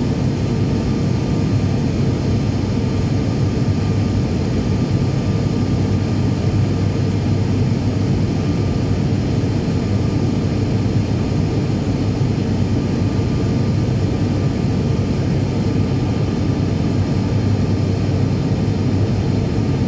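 Cabin noise of an ATR 72-500's turboprop engines and propellers during the climb after takeoff: a loud, steady drone with a deep hum and a thin, steady whine above it.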